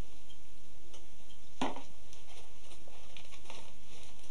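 Thin split pine strips rustling and clicking as they are pulled through the weave of a pine basket, with one sharper click about a second and a half in, over a steady low hum.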